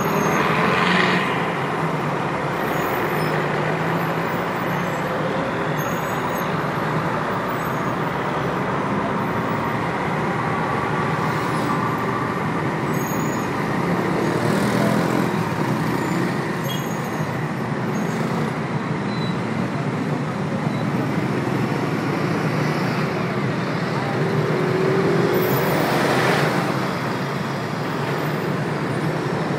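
Steady roar of traffic on a multi-lane city avenue: the engines and tyres of a continuous flow of vehicles. Single vehicles pass closer and louder about a second in, around the middle and near the end.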